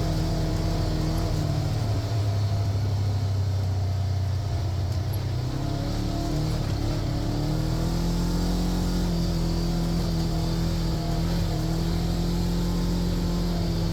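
A motor vehicle's engine running steadily, easing off about five seconds in and picking back up a couple of seconds later.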